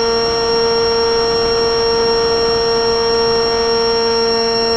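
RC flying wing's motor and propeller, picked up by a camera on the airframe: a steady whine holding one pitch, at constant throttle.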